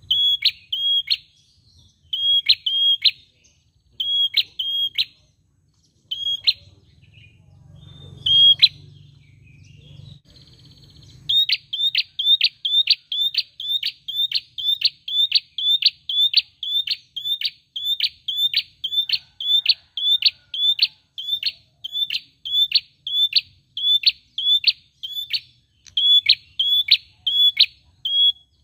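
A caged prenjak repeats a sharp, high, clipped call. For the first nine seconds or so it comes in short clusters of two or three notes with pauses between them. From about eleven seconds in it becomes a steady run of about two calls a second.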